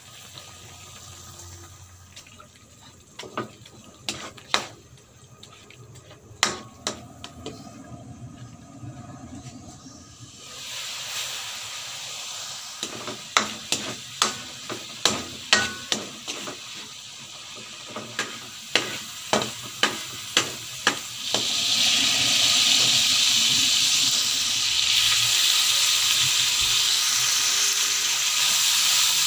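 Ground pork frying in a metal wok, stirred and scraped with a wooden spatula that knocks against the pan again and again. The sizzle grows louder a third of the way in, and near the end it turns into a loud steady sizzle as sliced tomatoes and onion go into the hot wok.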